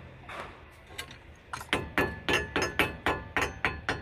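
Rapid metallic tapping starting about a second and a half in, about four or five knocks a second, each with a short ring: a metal tool knocking the grease cap back onto a Toyota Avanza's front wheel hub.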